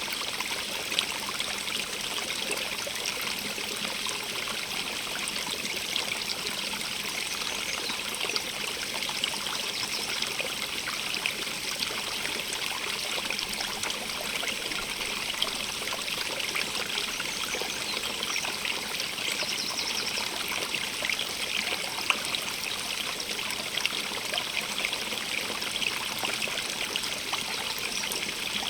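Small stream of running water trickling and splashing steadily, a bright hiss with fine scattered droplet splashes.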